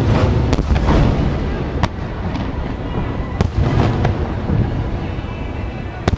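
Aerial fireworks shells bursting: several sharp cracks, close together at first and then more spaced out, over a continuous deep rumble of booms.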